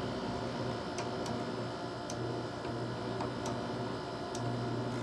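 Haier 5,200 BTU air conditioner (model HWF05XC7) running with a steady hum, with a handful of sharp, irregular ticks over it. The owner blames the odd fan sound on a faulty fan blade or fan motor.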